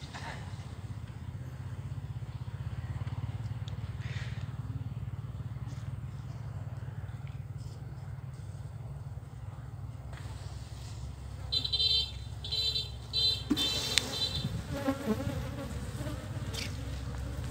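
Open hive of Asian honey bees (Apis cerana) buzzing as a steady low hum. About twelve seconds in, a quick run of short high chirps and a sharp knock stand out above the hum.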